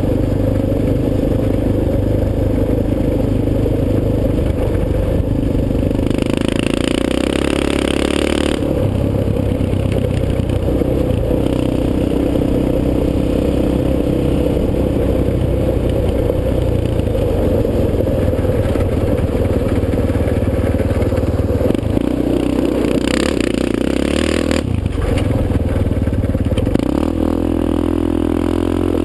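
Yamaha Raptor 250 SE quad's single-cylinder four-stroke engine running under way, its pitch stepping up and down several times. Twice a rushing hiss lies over it for a couple of seconds.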